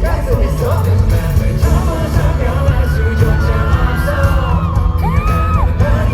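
Live K-pop song with a singing voice over a loud, bass-heavy backing track, and some fans yelling.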